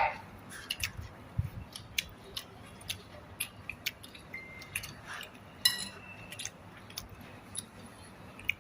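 Scattered light clicks and clinks of cutlery against dishes at a meal, coming irregularly every fraction of a second.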